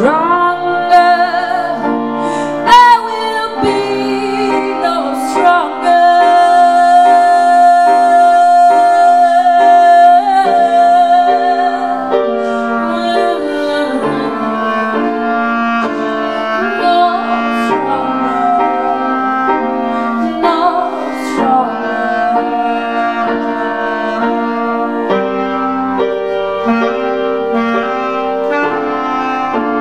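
Upright piano and clarinet playing a slow jazz-blues passage, the piano laying down chords under long held melody notes, one sustained for several seconds with a slight vibrato.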